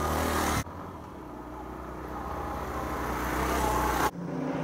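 Motorcycle engine running, broken by two abrupt edit cuts. Between the cuts the engine grows steadily louder for about three seconds.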